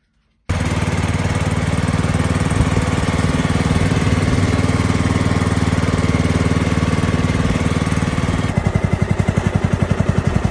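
Petrol lawn mower engine running steadily, starting abruptly about half a second in. Near the end it changes to a more pulsing, chugging note.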